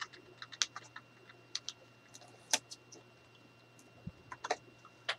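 Backing liner being peeled off double-sided tape on a chipboard album cover: scattered small crackles and clicks, with a few louder sharp snaps.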